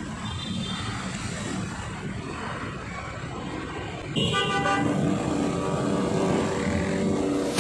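Street traffic at a stopped intersection, with engines idling. About four seconds in, a vehicle horn sounds and holds as a steady tone over the traffic.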